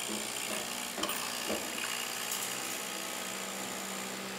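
Capsule coffee machine's pump buzzing steadily as it brews espresso into a mug, with a couple of sharp clicks about a second in.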